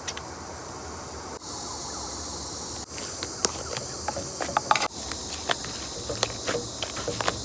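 Fluffy slime being pressed and stretched by hand. A steady hiss is joined, from about three seconds in, by irregular sticky clicks and small pops.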